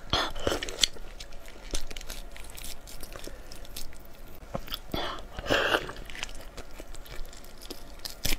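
Close-miked biting and wet chewing of lobster meat, with scattered mouth clicks and two louder wet smacks, one right at the start and one about five and a half seconds in.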